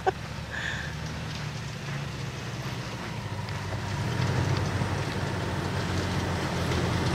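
Toyota Tacoma 4x4 pickup's engine running as it drives over sand, with a steady low hum and tyre and wind noise; it grows louder from about three seconds in as the truck picks up speed.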